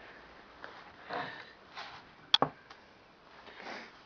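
A person sniffing and breathing in short puffs, with two sharp clicks close together about halfway through.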